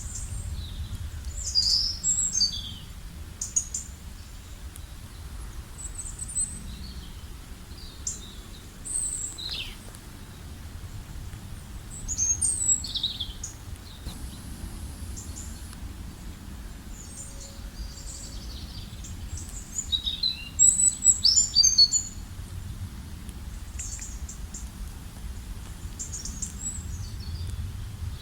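Songbirds chirping and calling in short high phrases and quick trills, on and off throughout, busiest about twenty seconds in, over a low steady rumble.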